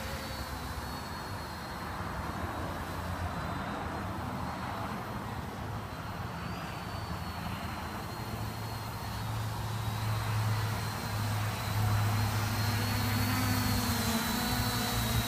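SK450 quadcopter with four NTM 28-26 1000 kV brushless motors and propellers buzzing steadily in flight, with a wavering high motor whine over a low hum. It grows louder over the last several seconds as the drone flies closer.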